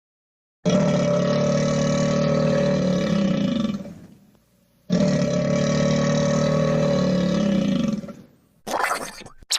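Cartoon sound effect: a long, loud, roar-like growl with a steady pitch, played twice, each time for about three seconds and fading at its end. A short, harsher effect follows near the end.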